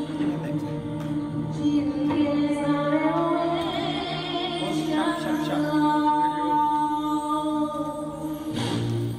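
A cappella vocal ensemble singing: low voices hold a steady drone chord while a lead voice sings a melodic line above it that climbs and then holds a high note.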